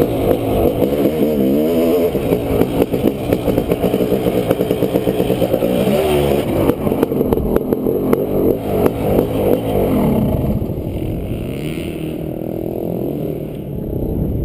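2001 Honda CR500's 500 cc single-cylinder two-stroke engine under way, its pitch rising and falling as the throttle is worked. After about ten seconds it eases off and runs lower and quieter.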